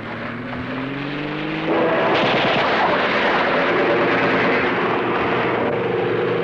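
A car engine revving, its pitch climbing. About two seconds in, a biplane's propeller engine drone joins and the whole sound gets louder.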